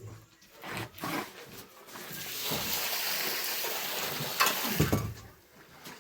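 A steady hiss that starts about two seconds in and lasts nearly three seconds, with a couple of sharp knocks near its end.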